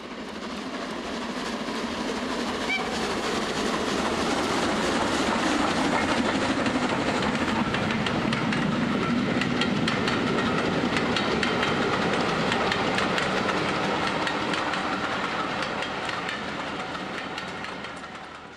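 A train running on rails, wheels clicking over the rail joints in a dense, steady rattle. It fades in at the start and fades out near the end.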